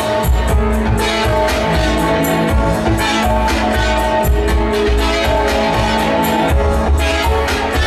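Live band music through a club PA: held keyboard chords over heavy bass with a steady beat, and no singing.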